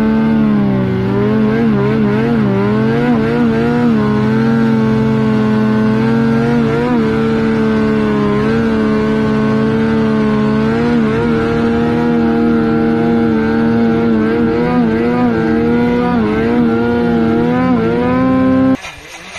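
Snowmobile engine running at high revs under load in deep snow, its pitch wavering up and down as the throttle and load change, with a dip about a second in. It cuts off abruptly near the end.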